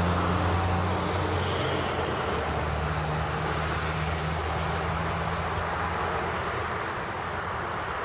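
Diesel locomotives of a coal train passing, their engines running with a steady low drone under the rumble of wheels on rail, easing off slightly toward the end.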